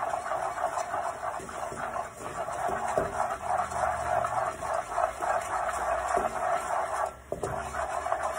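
Wooden spoon stirring and scraping food around a non-stick pot on a gas burner, a steady scraping that breaks off briefly about seven seconds in.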